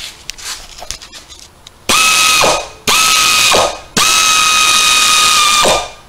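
Air ratchet running a brake caliper mounting bolt in, in three bursts, the last about two seconds long. Each burst is a steady whine that winds down when the trigger is released.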